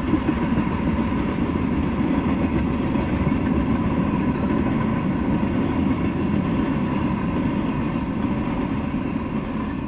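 Freight train of covered hoppers and tank cars rolling past on steel wheels: a steady low rumble of wheels on the rails.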